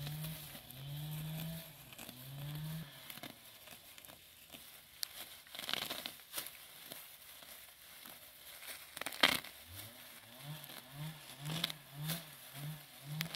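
Rustling and crinkling of grass and weeds being pulled by hand, with scattered sharp snaps, the loudest just after nine seconds. A low, pitched, repeated call sounds three times near the start and again, about two to three times a second, from about ten seconds in.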